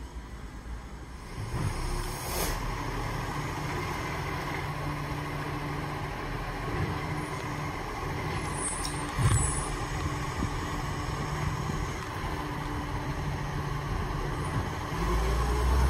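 Side-loader garbage truck's diesel engine running steadily, with a short hiss about two seconds in and a louder knock around nine seconds. Near the end the engine grows louder and rises in pitch as the truck pulls away.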